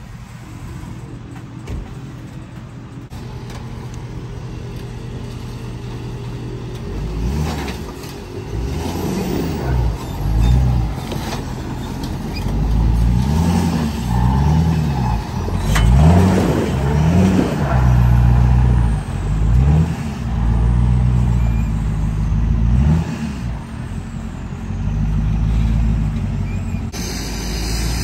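Lifted Ford F450 diesel pickup on 53-inch tires driving through mud and water, its engine running low at first, then revving up and down over and over from about seven seconds in as it works through the crossing.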